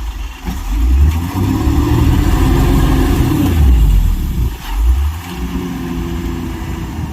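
Heavy diesel engine revving up and easing back twice over a deep, steady rumble.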